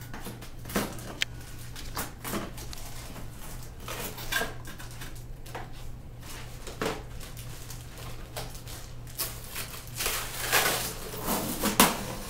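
Toy parts and packaging being taken out of a box and handled: irregular plastic clicks and rustles that get busier near the end, over a steady low electrical hum.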